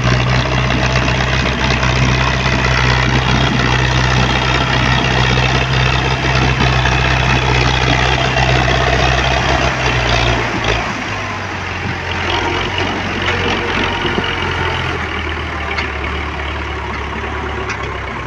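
Tractor diesel engine running steadily while hauling a heavily loaded trailer. About ten seconds in, the engine note drops lower and the sound gets a little quieter.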